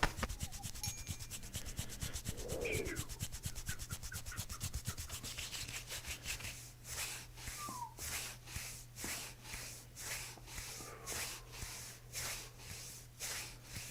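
Hands rubbing over a patient's body in rhythmic massage strokes. The strokes come quickly at first and slow to about two a second in the second half.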